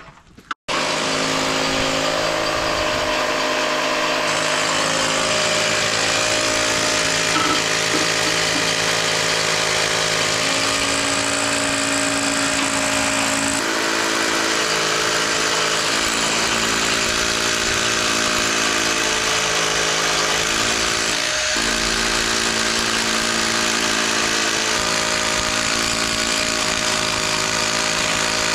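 Ozito wet/dry shop vacuum running steadily together with a hand drill boring into a concrete slab, the vacuum drawing off the dust at the hole. It starts about half a second in, and its hum shifts slightly in pitch a few times.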